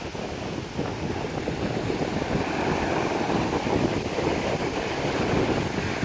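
Mediterranean surf breaking and washing up onto a sandy beach, a continuous wash of small waves, with wind buffeting the microphone.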